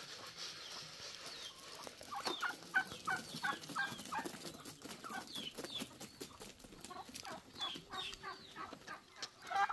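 Chickens clucking: a run of short calls repeated several times a second, starting about two seconds in.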